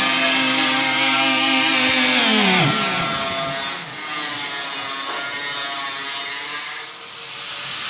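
An electric power tool's motor whining at speed, spinning down about two and a half seconds in, then running again and stopping near the end.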